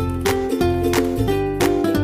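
Background music: a plucked-string tune over a bass line.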